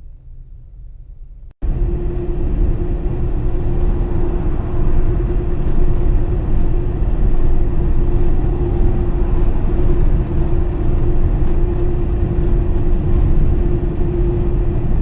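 Road and engine noise inside a moving vehicle: a loud, steady low rumble with a constant hum. About a second and a half in, a quieter rumble cuts off abruptly and the louder running noise begins.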